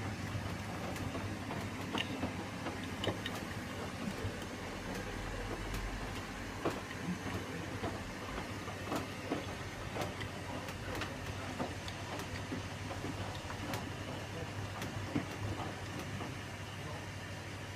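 Hotpoint WMAO863 washing machine running, with a steady low hum and frequent irregular clicks and knocks.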